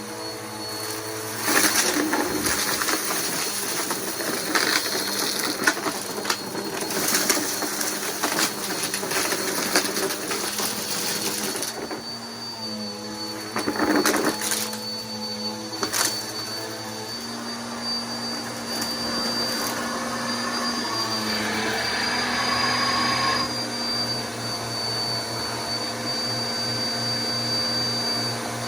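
Bissell PowerForce Helix upright vacuum cleaner running, with a steady high motor whine. The sound surges unevenly through roughly the first half, then settles into a steadier run.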